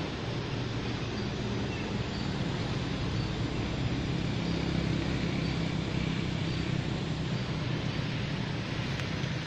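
Steady low rumbling background noise outdoors, with a few faint short high chirps scattered through it.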